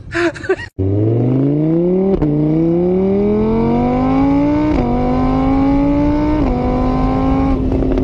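Motor scooter engine sound accelerating through the gears, starting about a second in: the pitch climbs, drops back at each of three shifts, then holds steady.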